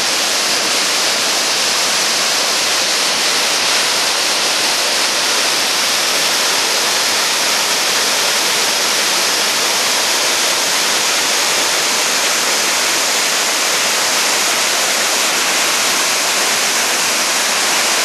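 Waterfall pouring down a rock face onto rocks: a loud, steady rush of falling water that does not change.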